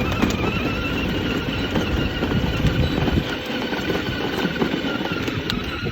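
A child's ride-on toy car rolling along, a rough rumble from its wheels on the ground under a steady high whine.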